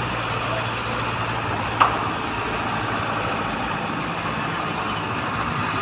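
Heavy truck diesel engine of a concrete mixer truck running steadily at a low, even speed, with one short sharp knock about two seconds in.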